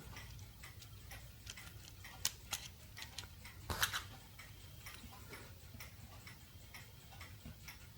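Faint, irregular light clicks of the small plastic gears of a disassembled quartz clock movement being handled and turned, with a couple of slightly louder clicks in the first half.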